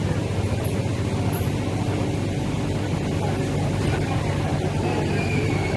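Steady hum and hiss of an MTR Kwun Tong Line train standing at an underground platform with its doors open, mixed with the platform's ventilation noise.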